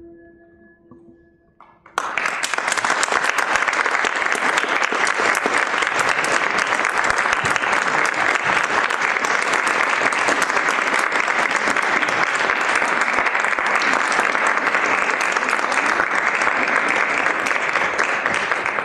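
A ringing tone with several pitches dies away, then about two seconds in an audience suddenly breaks into dense, steady applause.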